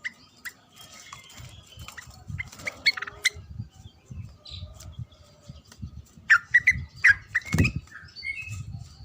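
Yellow-vented bulbul (trucukan) calling in short, sharp chirps that come in quick clusters, over repeated low thumps; a loud thump comes about seven and a half seconds in.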